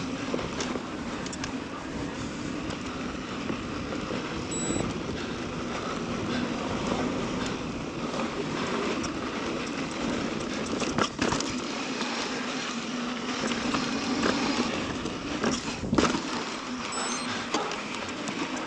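Mountain bike rolling fast down a dirt and rock trail: a steady rush of tyre and trail noise with scattered clicks and rattles, and sharp knocks from bumps about eleven and sixteen seconds in.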